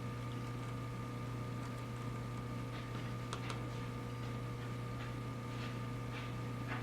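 Hot air rework station blowing hot air onto a BGA RAM chip to melt the solder underneath: a steady low hum with a few fixed higher tones, and a couple of faint ticks about three seconds in.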